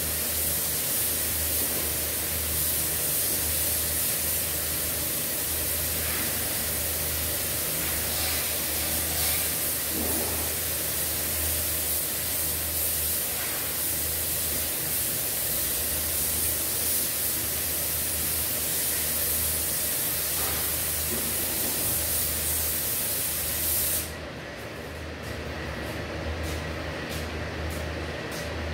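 Compressed-air paint spray gun hissing steadily as it sprays paint onto a car bumper. The hiss cuts off abruptly near the end when the trigger is released, leaving a quieter low hum.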